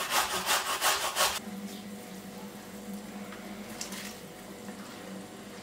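A carrot being grated on a metal box grater: a quick run of rasping strokes, about four a second, that stops about a second and a half in. A quieter steady low hum follows, with a soft scrape near the end as grated carrot is pushed off a wooden board into the pot.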